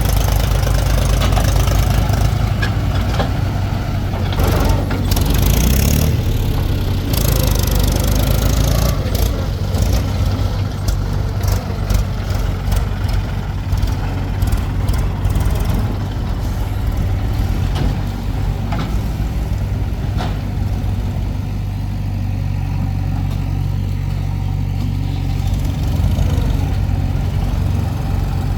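Heavy diesel engine of earthmoving machinery running steadily. Sharp knocks and clanks of working gear come over it in the first half, and it settles to a smoother, slightly quieter run after about halfway.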